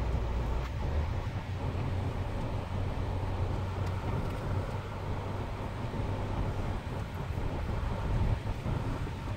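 Jeep Wrangler JK driving through snow, heard from inside the cabin: a steady low engine and drivetrain drone with road noise. The drone shifts up in pitch about a second in.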